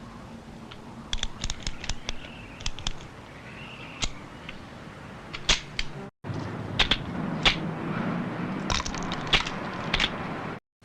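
TV drama sound effects: a series of sharp cracks and hits over a low background hiss, in two clips broken by a short silence about six seconds in, with the sharpest hit near the end.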